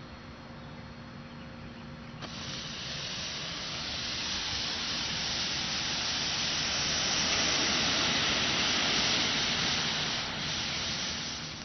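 Homemade sugar and potassium nitrate smoke bomb catching about two seconds in and burning with a steady hiss. The hiss swells louder and then fades near the end.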